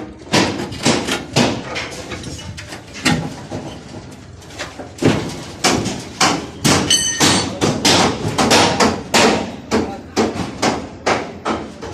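Hammer blows on aluminium formwork, irregular but about two a second, with a brief high ringing tone about seven seconds in.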